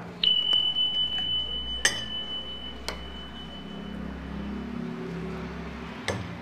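A steel spoon knocks against a tall drinking glass as it tips in soaked sabja (basil) seeds. The glass rings with one clear high tone that fades over about four seconds, and two more light clinks come about two and three seconds in.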